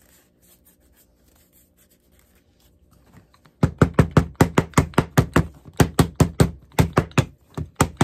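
A cobbler's hammer pounding a glued leather shoe piece to set and flatten the bond: a fast, even run of sharp taps, about four or five a second, starting about three and a half seconds in after some quiet handling of the leather.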